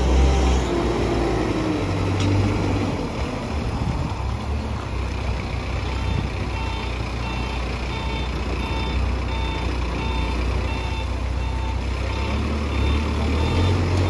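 Diesel engine of a CASE backhoe loader running as the machine manoeuvres, its reversing alarm starting to beep about six seconds in, roughly three beeps every two seconds.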